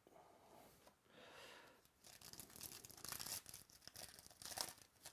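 Foil wrapper of a 2017 Phoenix Football card pack being torn open and crinkled by hand, faint; the crackling starts about two seconds in and comes in uneven bursts.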